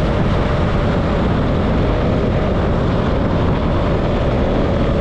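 KTM Duke 200's single-cylinder engine running at a steady cruising speed, mixed with wind rushing over the helmet-cam microphone. The sound is a loud, steady rush with no revving.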